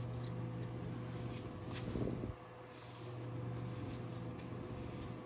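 Baseball trading cards handled and shuffled through in the hands: faint rustling with a few light clicks of card against card, over a steady low hum.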